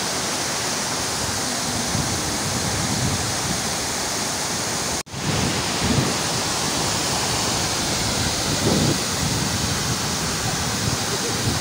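The River Kuja's brown floodwater pours over the rocks and the man-made cliff at Gogo Falls, a steady rushing roar of white water. The sound breaks off for an instant about five seconds in and carries straight on.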